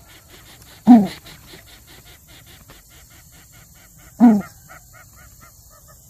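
An animal giving two short, loud calls about three seconds apart, each dropping in pitch. Behind them runs a faint, rapid series of chirps at about four or five a second.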